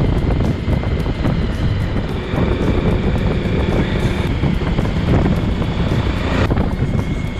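Touring motorcycle's engine running steadily on the move, a continuous drone picked up by a camera on the bike.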